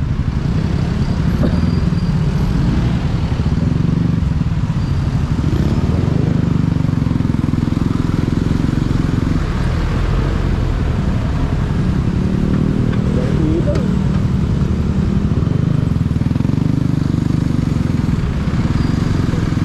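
Motorcycle riding slowly in traffic: its engine running steadily under a low rumble of wind on the microphone.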